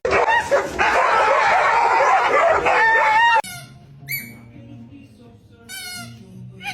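A dog barking and howling loudly, cutting off suddenly about three and a half seconds in, followed by a few quieter, high-pitched calls.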